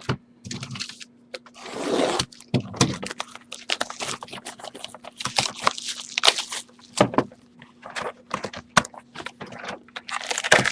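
A cardboard trading-card box being opened by hand and its foil card packs pulled out: irregular scraping, crinkling and sharp taps. A faint steady hum runs underneath.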